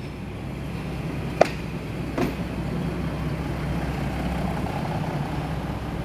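Diesel railcar train pulling slowly out of the station, a steady low engine drone from under the passing carriages, with two short sharp metallic clanks about one and a half and two seconds in.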